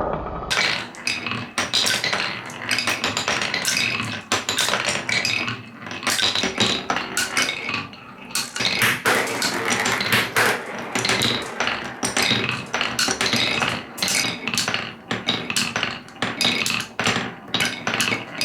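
Marbles rolling and clattering down a wooden stair-step marble run, with a dense, uneven stream of hard clicks and knocks as they drop from step to step and strike each other and the wooden turn pieces.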